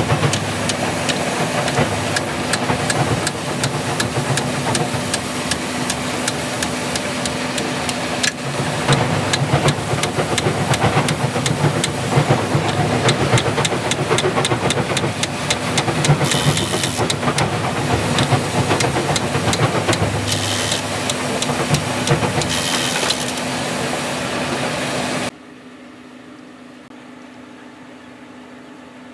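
Impact wrench hammering in rapid rattling bursts as it loosens the bolts on a wheel loader's wheel-side hub, over a steady machine hum. A little before the end the hammering stops abruptly, leaving only the quieter hum.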